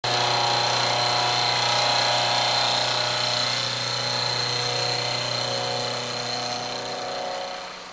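Vertical milling machine cutting a flat on a shaft held in a dividing-head chuck: a steady spindle whine over cutting noise, dying down near the end.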